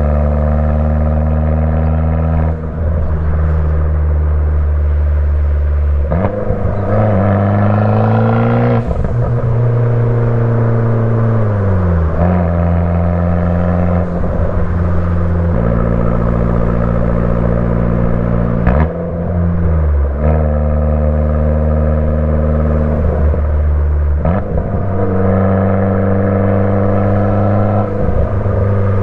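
Fiat 500 Abarth's 1.4-litre turbocharged four-cylinder running through an MPx catback exhaust while driving. It holds a steady drone at one pitch for a few seconds at a time, with the pitch stepping to a new level several times and sliding down for a couple of seconds near the middle.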